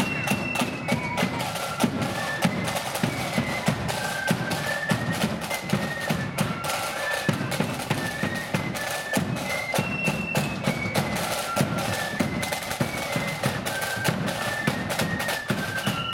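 Marching flute band playing a tune: flutes carry a high melody over the side drums and a steady bass drum beat.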